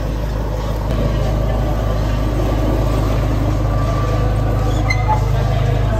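Steady low mechanical hum with a noisy hiss over it.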